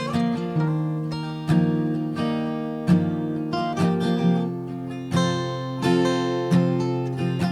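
Acoustic guitar playing the instrumental intro of a folk song: chords strummed and picked in a steady rhythm, a fresh attack about every three quarters of a second.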